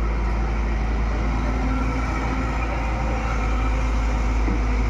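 Excavator diesel engine running steadily with a deep low rumble.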